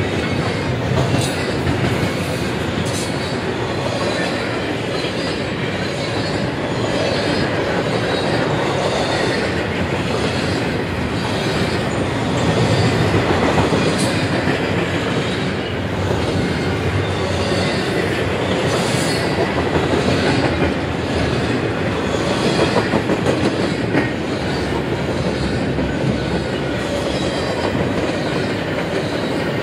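Double-stacked container well cars of a CSX intermodal freight train rolling past: a steady rumble and clatter of steel wheels on the rails, with a few sharp clicks along the way.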